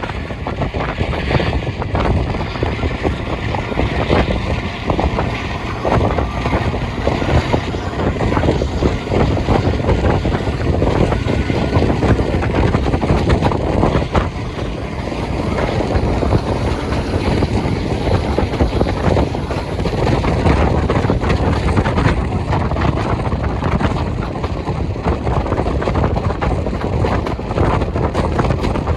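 A heritage diesel locomotive running loud and steady under hard power.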